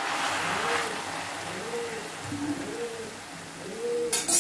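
Red sorrel leaves sizzling softly as a steel spoon stirs them in a kadai; the hiss fades after about a second. A faint low hoot repeats about every second underneath, and a brief loud clatter comes near the end.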